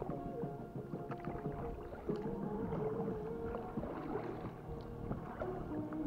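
Background music with long held, slowly changing notes; the notes change about two seconds in and again near the end.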